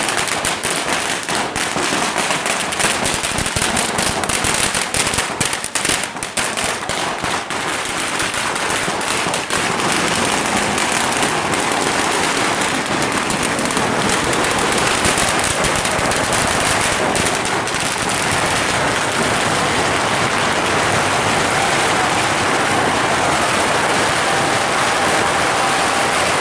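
Fireworks and firecrackers going off in rapid succession: a fast string of sharp cracks and bangs for about the first ten seconds, then merging into a dense, continuous crackle.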